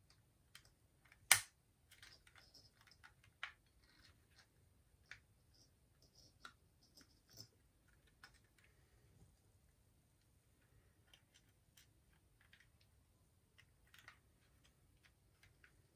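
Faint clicks and ticks of a precision screwdriver and a plastic remote-control casing being handled as its small screws are driven back in, with one sharp click a little over a second in.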